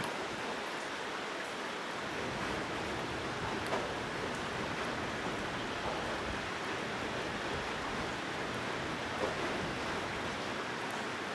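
Heavy rain pouring down in a steady, even hiss, with a couple of brief faint knocks.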